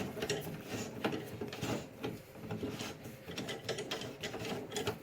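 Irregular metallic clicks and rattles of a table-mounted circular saw's tilt mechanism being worked by hand to tilt the blade.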